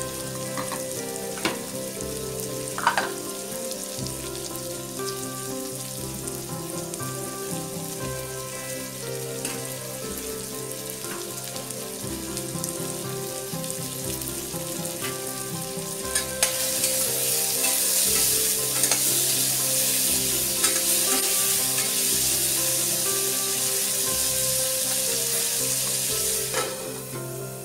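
Pumpkin cubes with green chili and cumin sizzling in ghee in a stainless steel saucepan, with a couple of clinks in the first few seconds. The sizzling grows louder about two-thirds of the way through as the pieces are stirred, then drops near the end.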